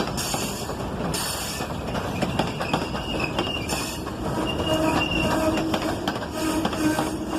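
Freight train cars rolling past with rhythmic clacking over the rail joints. From about halfway through come intermittent wheel squeals as held high tones.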